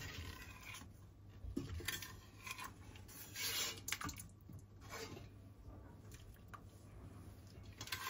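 Light kitchen clatter of pots, lids and utensils, a few scattered knocks and scrapes with a longer noisy burst about three and a half seconds in, over a steady low hum.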